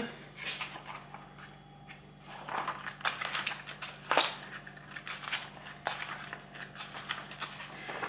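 Paper pages of a printed catalogue rustling and crinkling as they are handled and leafed through, in irregular small crackles and flicks.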